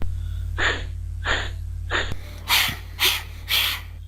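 A voice repeatedly sounding the English /h/ phoneme: about six short breathy huffs of air without pitch, roughly one every half second to second, the last three louder. A steady low mains hum lies beneath.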